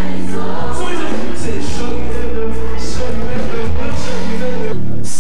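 Christian worship music: a band with bass and drums playing under singing voices. The bass drops out near the end.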